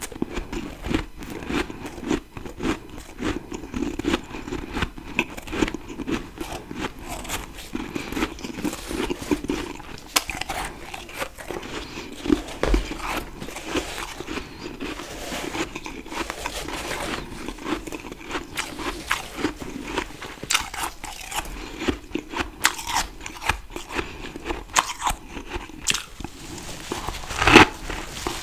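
Close-up crunching and chewing of fresh humidifier freezer frost: dense, crackly bites and chews one after another, with one sharper, louder crunch near the end.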